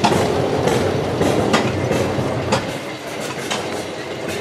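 Machinery running, with a steady mechanical rumble broken by sharp, irregular clacks about once a second.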